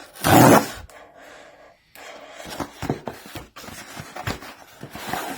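A package being handled and opened: a loud rush of noise at the start, then scattered rustles, clicks and light knocks of packaging.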